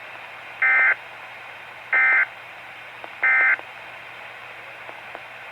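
Three short bursts of SAME (Specific Area Message Encoding) digital data tones from a weather radio broadcast, about a second and a quarter apart. They are the coded header that opens an emergency alert and sit over a steady receiver hiss.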